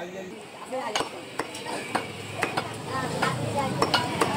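Meat cleaver chopping beef on a wooden log chopping block: repeated sharp chops at an uneven pace, about two a second.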